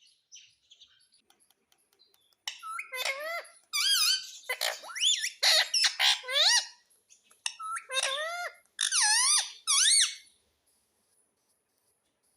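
Parrot giving a run of shrill, squeaky calls that swoop up and down in pitch, starting about two and a half seconds in and stopping near ten seconds.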